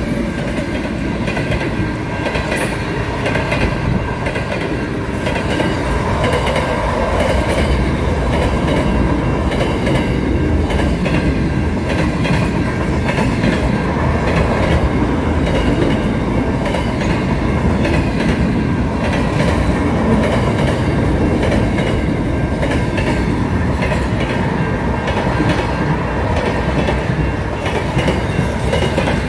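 Pacific National freight train passing close by: a steady, loud rumble with the clatter of wheels over the rails as the wagons roll past.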